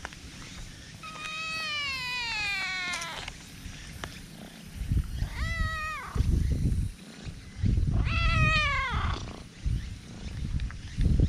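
Black stray cat meowing three times: a long falling meow about a second in, a short meow midway, and another falling meow near the end. Low rumbling noise comes in between the later calls.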